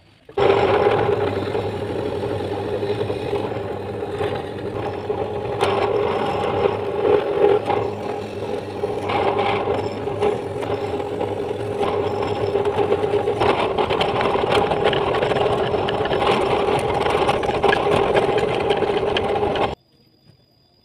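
Bench drill press motor running with a steady hum while its twist bit bores holes in a wooden block, with rougher scraping stretches as the bit cuts. The sound starts abruptly just after the opening and cuts off suddenly near the end.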